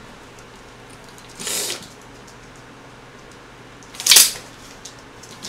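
A folding hand fan snapped open twice with a sharp rustling swish, about a second and a half in and again, louder, about four seconds in.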